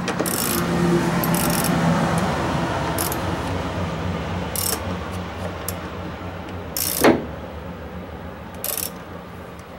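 Socket ratchet clicking rapidly as a bolt is run home on an engine-bay bracket, slowly fading, with a few sharper metal clacks, the loudest about seven seconds in.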